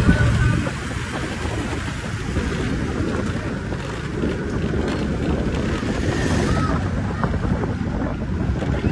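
Wind rumbling and buffeting on the microphone, a steady low noisy roar.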